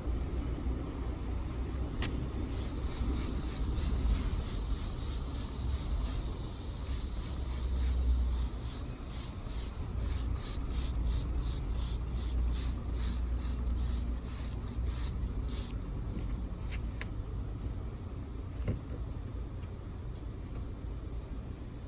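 Quick, evenly spaced hissing strokes, about three a second, as a car tire and rim are being cleaned; they start a couple of seconds in and stop after about 13 seconds. A steady low rumble runs underneath.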